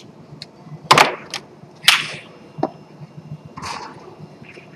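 Tornado foosball table in play: sharp cracks of the hard ball being struck by the players' men and hitting the table, the loudest about one and two seconds in, with lighter knocks and rod clicks between.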